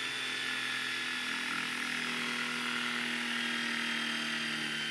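Corded electric drill running steadily at speed with a foam polishing pad, buffing a plastic headlight lens: an even motor whine.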